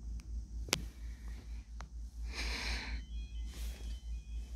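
Level-crossing warning alarm beginning to sound faintly, thin steady tones starting about three seconds in as the amber lights come on, heard from inside a car over a low idling engine rumble. A few small clicks early on and a short breathy hiss just before the tones start.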